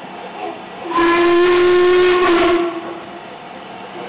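Steam locomotive's whistle sounding one steady blast of about a second and a half, starting about a second in, over the hiss of escaping steam, as the train departs.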